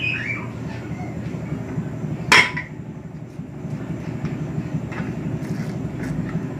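Food prep at a plastic cutting board: one sharp knock a little over two seconds in, then light taps and clicks as garlic cloves and a knife are handled, over a steady low hum.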